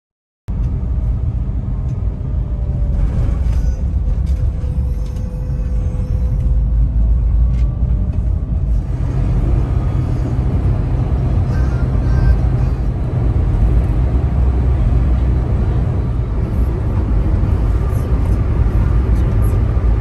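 Steady road and engine noise inside a car cabin at highway speed, heavy in the low end, with music playing under it.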